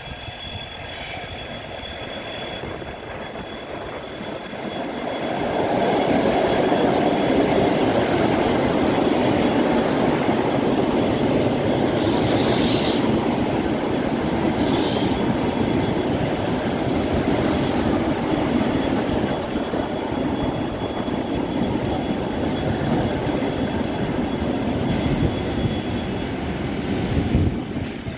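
ET2M electric multiple unit running into a station platform: the rumble of its wheels on the rails grows about five seconds in as it draws alongside and stays steady, with two brief high-pitched sounds about halfway through, then falls away near the end as the train comes to a stop.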